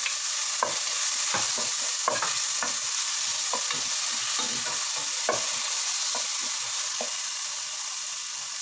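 Chopped tomato, onion and garlic sizzling in oil in a pot, with a wooden spatula scraping and knocking against the pot as it stirs. The stirring stops about seven seconds in, and the sizzle carries on a little quieter.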